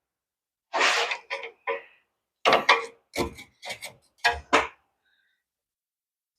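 Irregular series of about ten sharp metal knocks and clanks, the first a short scrape about a second in: a removed outer tie rod end stuck fast in a socket being knocked and worked to free it.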